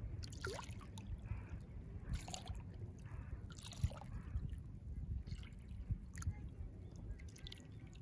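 Small waves lapping at the water's edge of a calm sea bay, with short splashes and trickles every second or so over a low steady rumble.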